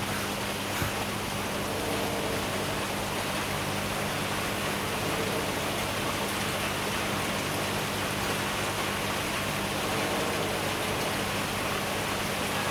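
Steady rain-like hiss with a low, steady hum underneath.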